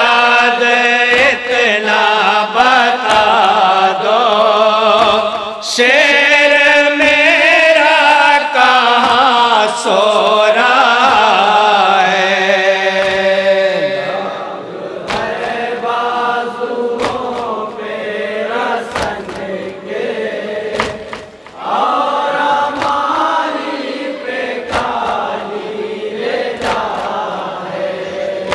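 A group of men chanting a noha, an Urdu Shia lament, together through microphones, with sharp slaps keeping a beat about once a second. The chanting is fuller and louder in the first half and lighter after about halfway.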